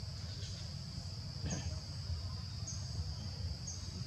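Steady high-pitched drone of insects such as cicadas or crickets, with short high chirps about once a second and a low rumble underneath.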